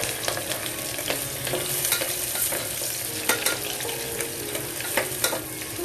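Sliced onions and green chillies sizzling in hot oil in a pressure cooker, stirred with a spoon that clicks and scrapes against the pot.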